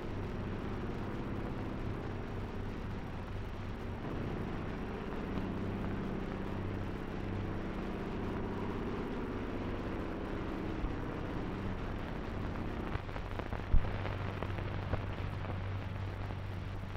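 Background noise of an old 1930s film soundtrack: steady hiss with a low hum, and one sharp pop about 14 seconds in.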